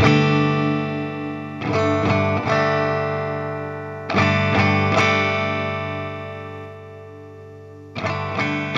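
Guitar played through a pedalboard effects chain: chords strummed and left to ring out, several in the first five seconds. The last one fades slowly over a few seconds before a fresh strum near the end.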